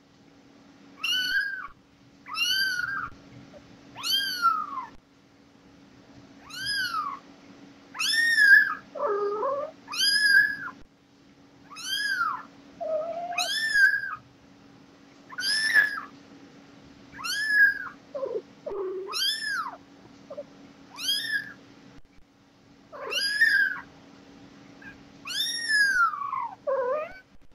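Kitten mewing over and over, each cry a high arching call that rises and falls, repeated about every second and a half. A few lower, shorter mews come in among them.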